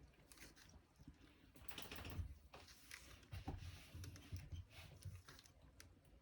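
Faint, irregular clicks and taps of small wooden pieces being handled and set down on a work surface during gluing, with some low handling rumble.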